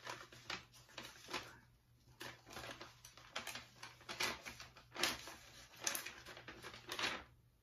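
A large paper envelope being torn open by hand: short ripping and rustling sounds in irregular bursts.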